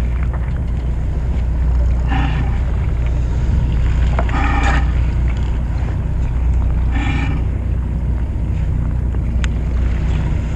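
Steady low hum of the fishing boat's engine running, with a short higher-pitched sound repeating about every two and a half seconds.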